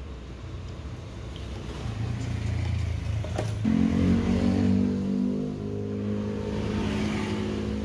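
A motor vehicle engine running at a steady pitch, growing louder and fuller about three and a half seconds in, with a light click just before.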